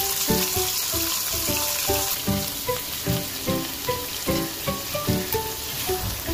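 Pork chops sizzling steadily as they fry in hot oil in a pan. Background music of short melodic notes plays over the sizzle.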